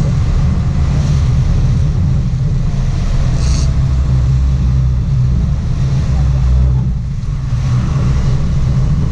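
Sport fishing boat's engines running under way, a steady low rumble, with the rush of water churning in the wake at the stern.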